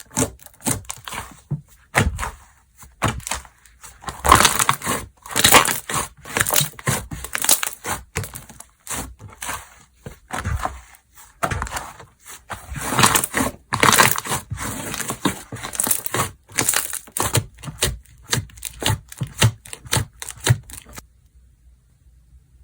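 Hands squishing, pressing and stretching a glue-based slime, making dense crackling, clicking and squelching pops in swelling bursts. The sound stops near the end.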